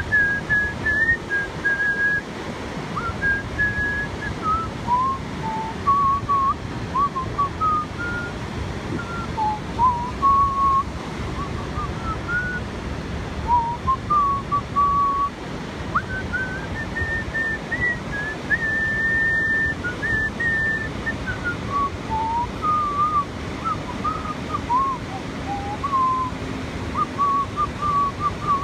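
Someone whistling a slow, wandering tune, with short breaks between phrases, over a steady wash of surf and wind.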